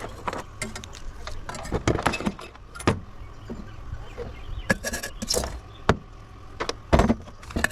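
Irregular clinks, clicks and knocks of metal parts and hand tools being handled while a coffee maker is taken apart for scrap, with louder knocks about two, three, five and seven seconds in.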